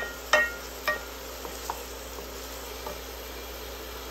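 A wooden spoon knocking against a stainless steel saucepan three times in the first second, each knock leaving a short metallic ring, followed by a couple of lighter taps. Underneath, a faint steady sizzle of chopped onions sweating in oil.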